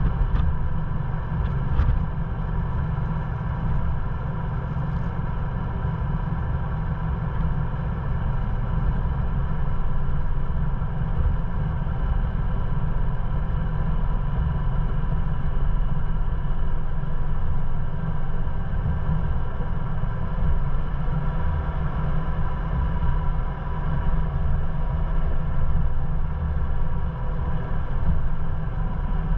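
Ford Bronco's engine running steadily as the truck drives slowly along a dirt trail, picked up by a camera mounted on its hood, mostly as a steady low rumble.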